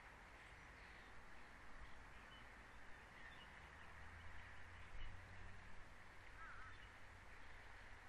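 Near silence: faint outdoor hiss from the nest cam's microphone, with a few faint, distant bird chirps and one short warbling call near the end.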